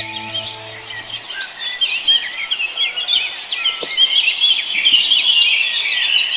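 A dense chorus of many small birds chirping and trilling, growing louder after the middle. A held musical chord fades out in the first second.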